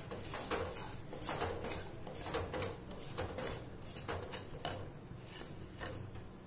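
Wooden spatula scraping and stirring semolina as it roasts in ghee in a nonstick pan: a run of gritty scraping strokes, about two a second, growing fainter near the end.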